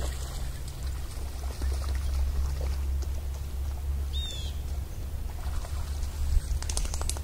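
Open-field ambience: a steady low rumble of wind noise on the phone's microphone, with light scattered rustling. A brief high chirp comes about four seconds in, and a few sharp cracks near the end.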